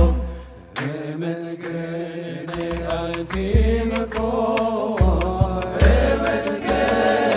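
Hebrew piyut (sacred song) of the Moroccan tradition, voices chanting over low drum beats. Right at the start the music drops away after a drum hit, and the voices come back in about a second later.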